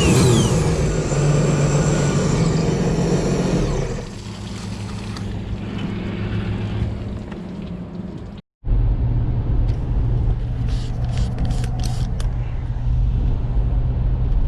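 A loud engine running for about four seconds and then easing off. After an abrupt cut, a steady low rumble of a car moving, heard from inside the cabin, with a few light clicks.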